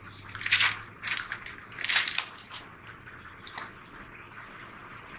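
Paper notebook pages being handled and turned over: a string of short rustles and crinkles, loudest about half a second and two seconds in.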